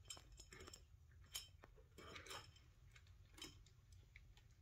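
Near silence with faint scattered clicks and crunches: a large Maine Coon cat eating dry kibble from a stainless-steel bowl.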